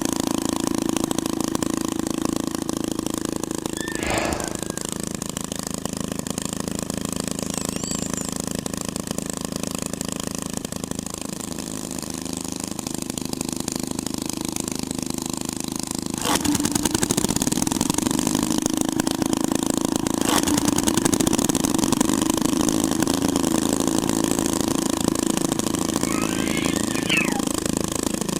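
Chainsaw engine running steadily, the sound of Chainsaw Man's saws. Its pitch and level sag about halfway through, then it picks up louder again after a sharp click, with another click a few seconds later.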